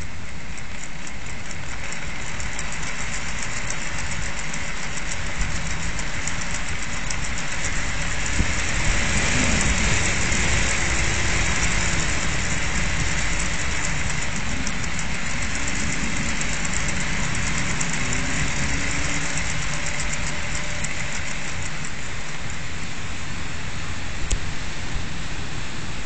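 Typhoon wind gusting at a window, with the whirr and fast ticking of an ECO RIDER wind-powered toy's propeller and gearing spinning in it. A gust swells the sound about nine seconds in.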